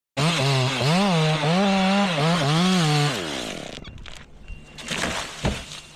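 Chainsaw running at high revs, its pitch rising and dipping several times, then winding down about three seconds in. A few sharp knocks follow near the end.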